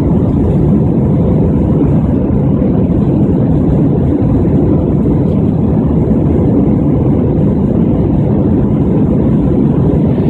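Airbus A320-200 cabin noise during the climb after take-off: a loud, even rumble of engine and airflow, low-pitched, with a faint steady tone above it.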